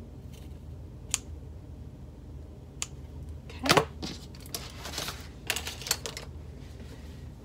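Sharp dressmaking scissors snipping through cotton fabric twice in the first few seconds, cutting diagonal slits toward the corners of a stitched rectangle. A louder clack follows about halfway through, then a run of light clicks and rustles as the fabric and tools are handled on a cutting mat.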